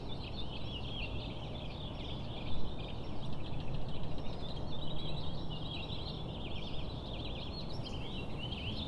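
Many small birds chirping and chattering continuously in overlapping high calls, over a steady low outdoor rumble, with one brief louder low bump about two and a half seconds in.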